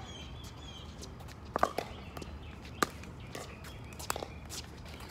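Pickleball paddles striking the hard plastic ball: a handful of sharp pops at irregular intervals, two of them loud, from this rally and the neighbouring courts.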